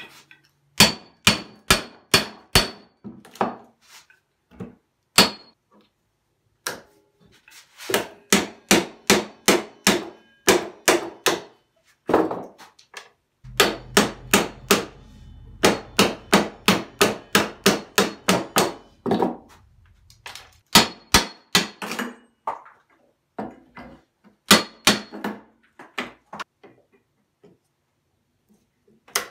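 Hammer striking the steel head of a nail-pulling pliers to drive its jaws under old nails in a weathered board: quick runs of sharp metal-on-metal strikes, some with a short ring, separated by pauses.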